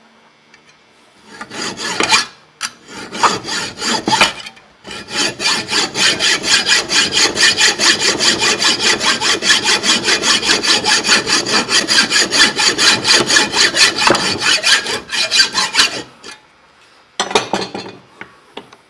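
Hand hacksaw cutting through the metal body of a spark plug clamped in a vise, with quick, even back-and-forth strokes. A few strokes start it off, then it saws steadily for about eleven seconds, stops, and gives a brief few strokes near the end. The cut frees the plug's ceramic insulator.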